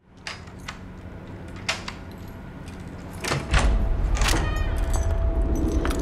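Keys clicking and rattling in a door lock, a few separate clicks and then a short metallic rattle a little after four seconds in. A deep low rumble sets in about three and a half seconds in and holds under it, with a faint steady tone above.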